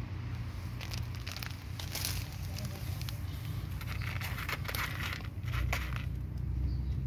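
A cat crunching dry kibble: clusters of crackly clicks over a steady low rumble.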